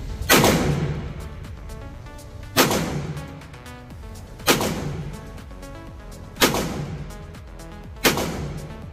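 Five gunshots about two seconds apart, each with a ringing tail that fades over a second or so, over background music.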